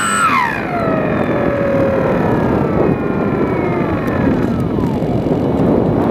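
Electric motor and propeller of a Sky Eye FPV glider spooling down as the throttle is cut: the steady whine drops sharply in pitch, then keeps sliding lower and fades over about five seconds, under a steady rush of wind over the aircraft.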